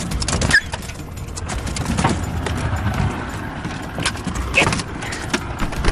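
Knocking, thumping and scuffling in a metal boat as a Canada goose attacks a dog, with two brief high cries about half a second and four and a half seconds in.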